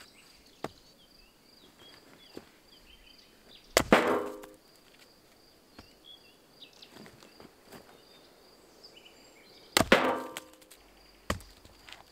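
Two axe strikes splitting firewood, about six seconds apart, each a sharp chop with a brief ring from the wood. A faint steady insect buzz and a few bird chirps run underneath.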